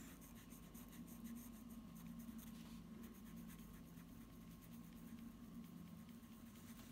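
Faint, quick scratchy strokes of a small wet paintbrush rubbing over watercolour-pencil colour on thin plywood, blending the colour with water.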